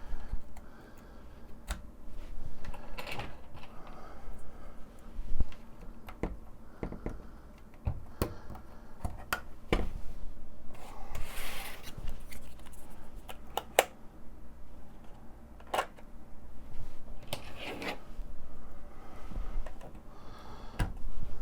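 Scattered clicks, taps and rustles of plastic instrument-cluster parts being handled and fitted: bulb caps and lens covers going back onto a Corvette digital dash housing.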